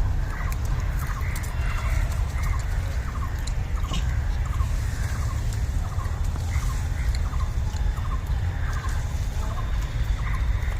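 A bird calling in short notes repeated about three times every two seconds, over a steady low rumble.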